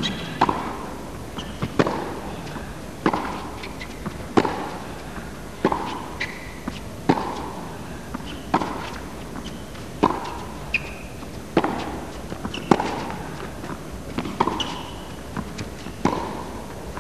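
Tennis rally: racket strikes on the ball about every one and a half seconds, with ball bounces between them, echoing in an indoor hall. Short high squeaks of players' shoes on the court come between the shots.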